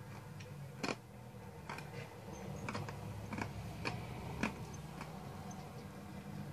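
Close eating sounds: sharp, irregular mouth clicks and smacks, about eight in a few seconds, as a fluffy whipped candy with sugar crystals in it is chewed and tasted. A low steady hum runs underneath.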